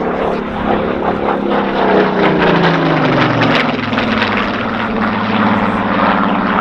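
Supermarine Spitfire's piston engine and propeller passing in a display: the engine note drops in pitch over the first few seconds as the aircraft goes by, then holds steady.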